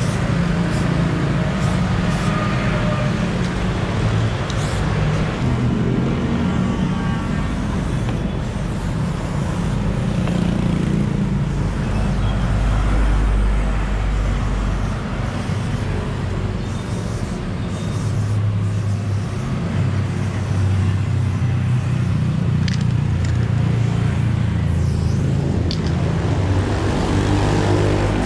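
Street traffic noise with a vehicle engine running steadily, and a deeper rumble about twelve seconds in.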